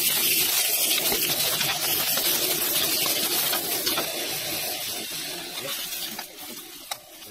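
Beef and leafy greens sizzling loudly in a hot steel wok on a propane camp stove as they are stir-fried with a metal ladle. The sizzle dies down after about four seconds, with a few light clinks of the ladle against the wok near the end.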